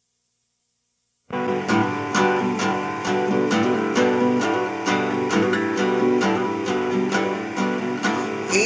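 Guitar intro of a song, plucked notes and chords in a steady rhythm, starting abruptly after about a second of silence.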